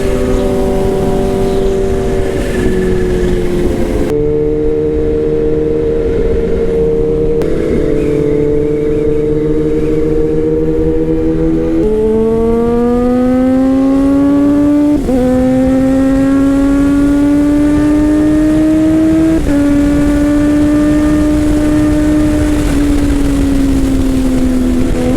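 Kawasaki ZH2's supercharged inline-four running through an Orion aftermarket exhaust under way, its pitch holding steady for long stretches. In the second half it climbs, drops sharply at two gear changes and climbs again, then eases off slowly near the end.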